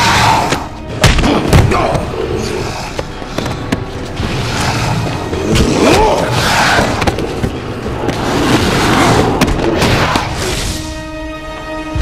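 Action-film fight soundtrack: score music under heavy thuds and booming impacts, with a pair of sharp hits about a second in. Near the end a held note of several steady tones rings over it.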